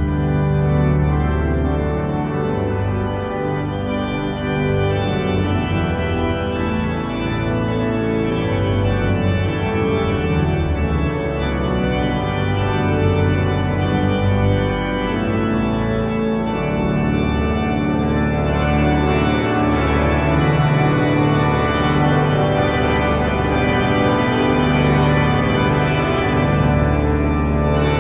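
Church pipe organ playing a piece in many parts over long held bass notes from the pedals. The sound gets brighter and fuller about four seconds in.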